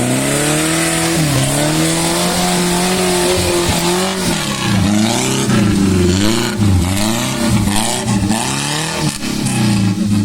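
Toyota Kijang 5K four-cylinder petrol engine in an off-road Suzuki Jimny revving hard: held at high revs for about four seconds, then the revs drop and surge again and again, about twice a second, before settling near the end.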